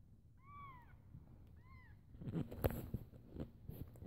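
Newborn kittens, too young to have teeth, mewing: two short, high, thin cries that rise and fall within the first two seconds. After that comes a second or so of rustling and knocking as they squirm on a blanket.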